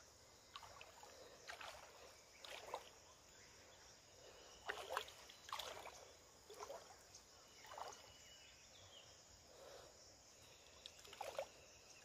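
Faint, irregular water splashing and dripping, a short splash every second or so, as a gill net is hauled by hand out of river water by someone wading in it.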